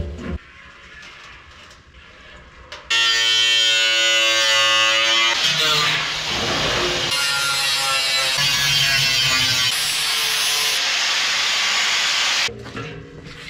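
Angle grinder cutting into a steel 55-gallon drum. It starts about three seconds in with a steady ringing whine, turns into a harsh grinding hiss, and cuts off suddenly near the end.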